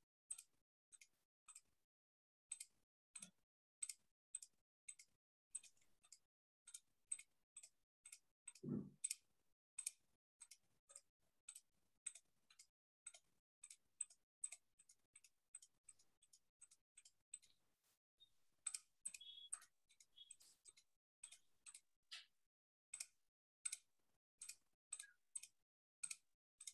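Faint, even ticking, about two ticks a second, with one soft thump about nine seconds in.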